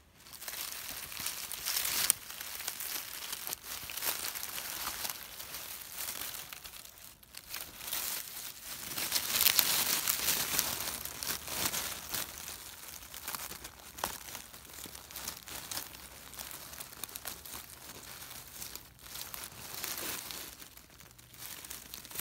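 Dry fallen leaves and forest litter crinkling and crackling as a hand pushes them aside, loudest about two seconds in and again from about nine to eleven seconds.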